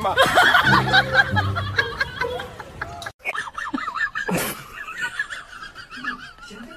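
Several people laughing and snickering together over light background music, with a short break about three seconds in.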